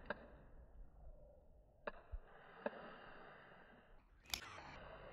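Faint room tone with a few short, soft clicks, and one sharper click about four seconds in.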